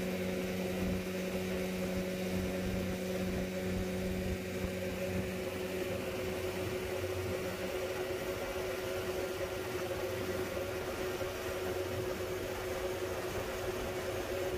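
Boat motor running steadily: a constant hum with a noisy rush over it. The lowest tone in the hum fades out about six seconds in.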